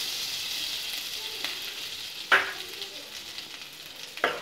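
Butter sizzling as it melts in a hot, dry aluminium pan, a steady hiss that slowly dies down. A sharp knock about two seconds in and another near the end.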